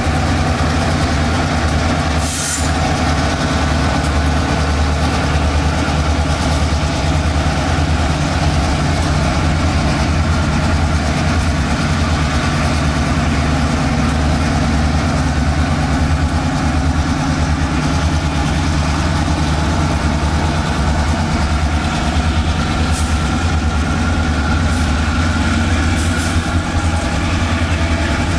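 CSX diesel locomotive engine running steadily with a low, even drone, and a single sharp click about two seconds in.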